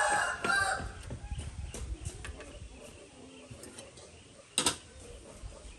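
A loud animal call ends in the first second. Then come scattered light clicks and taps of a knife and plate being handled on a wooden table, with one sharp knock about four and a half seconds in.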